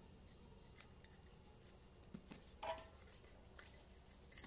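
Near silence with faint handling of metal diesel fuel injectors: a few light clicks and one soft clink about two and a half seconds in, over a low steady hum.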